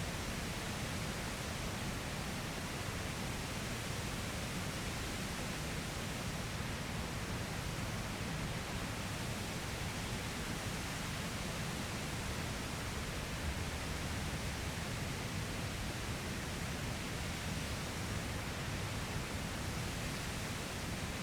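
Steady rushing noise of water pouring over a waterfall, an even roar without breaks.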